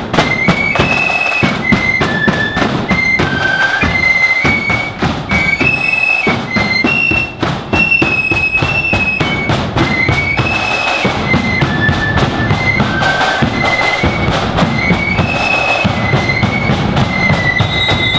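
Marching flute band playing a tune: a line of flutes in unison carries a high, shrill melody over side drums and a bass drum beating time.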